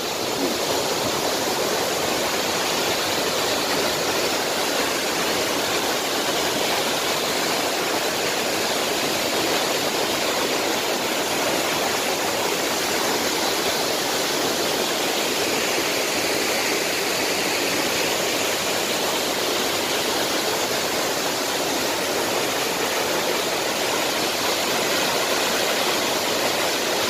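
Tall waterfall pouring into its plunge pool: a steady, even rush of falling water.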